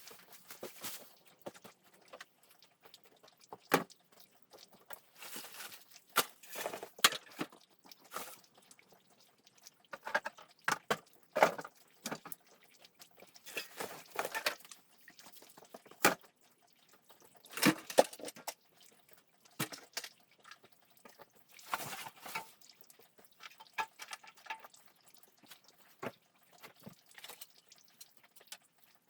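Irregular knocks, clatters and scraping of wood and debris being handled and moved about.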